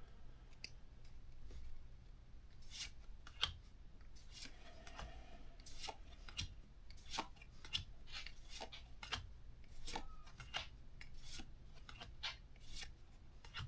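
Pokémon trading cards being handled: a run of short, irregular flicks and rubs as cards slide over one another.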